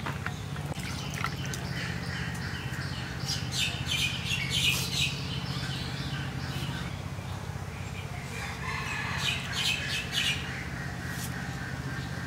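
Chickens calling in two bouts, about three to five seconds in and again around nine to ten seconds, over a steady low hum.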